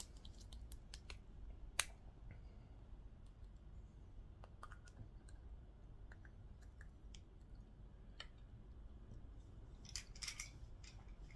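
Faint, scattered clicks and taps of hands handling shotgun cartridge parts. There is a sharp click about two seconds in, and a short cluster of taps about ten seconds in as a green core wad is stood on the table.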